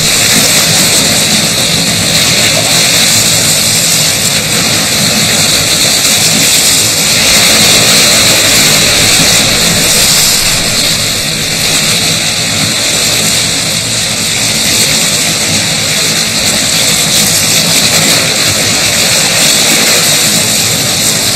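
Seawater churning and splashing in a steady, loud hissing roar as several southern right whales jostle and roll at the surface.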